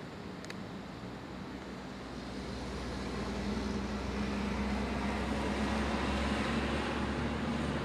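Cable-hauled incline railway car running, a steady low rumble with a hum that grows louder about three seconds in.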